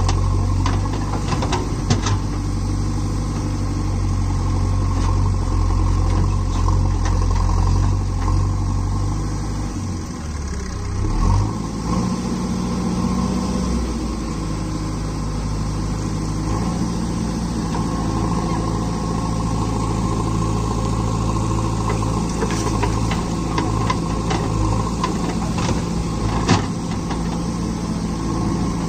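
Diesel engines of a JCB backhoe loader and an HMT 3522 tractor running steadily together while the backhoe digs and loads soil. The engine note shifts about ten seconds in, and a few sharp knocks stand out, one about two seconds in and one near the end.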